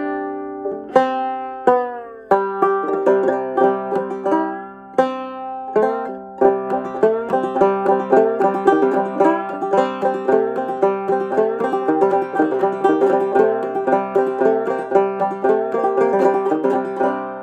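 Fretless banjo played clawhammer style: a few slower plucked notes that slide in pitch, then from about six seconds in a steady, quick run of plucked notes. The playing stops just before the end and the strings ring out and fade.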